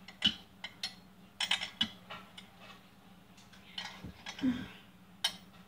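A metal utensil clinking irregularly against a pan on the stove while a flour-and-milk mixture is stirred.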